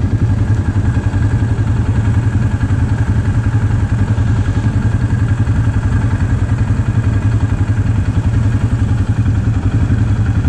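ATV engine idling steadily with a fast, even putter.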